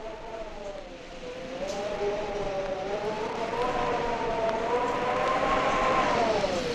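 Eerie howling sound effect from a 1961 spooky sound-effects record: several wavering tones slowly rise and fall together over a hiss that grows louder.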